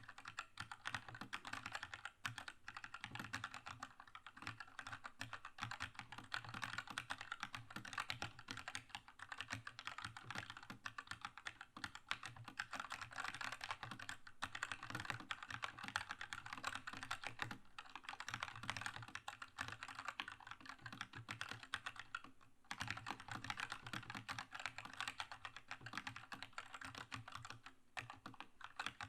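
Continuous fast typing on a Keychron K2 mechanical keyboard with linear red switches, a dense run of key clacks with a few brief pauses.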